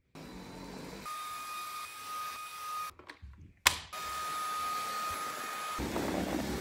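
Electric cleaning appliances heard in quick cuts: a motor running with a steady high-pitched whine, broken by a sharp click about three and a half seconds in, then a cordless stick vacuum running over a wood floor, picking up glitter, near the end.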